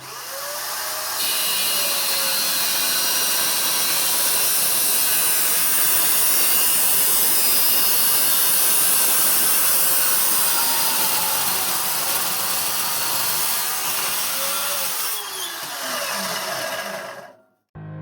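Electric miter saw running and cutting, a loud hissing whine that starts suddenly, grows louder about a second in, eases off near the end and stops abruptly.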